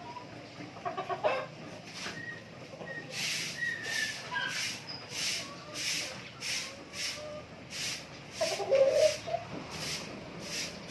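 Native chickens clucking, with thin high peeps in between and a louder burst of clucks near the end.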